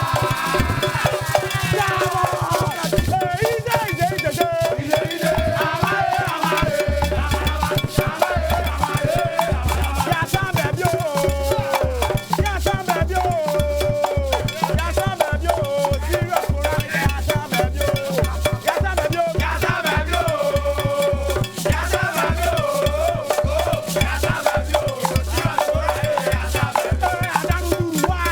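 Upbeat band music with a steady, driving beat, shaker-like percussion and a wavering melodic lead line.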